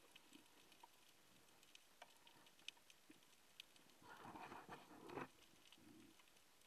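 Near silence, with faint scattered clicks and ticks and a soft rush of noise about four seconds in.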